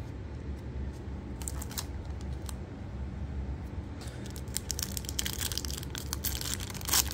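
Foil wrapper of a Topps Chrome baseball card pack crinkling in the hands, busier from about four seconds in, with a sharper rip near the end as the pack is torn open.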